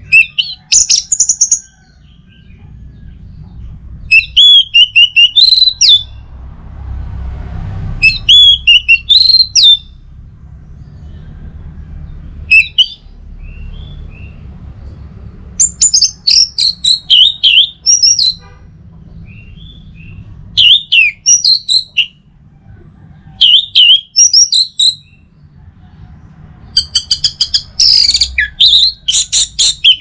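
Orange-headed thrush singing: about eight loud phrases of rapid, varied high notes, each lasting one to two seconds, with short pauses between them, over a faint low rumble.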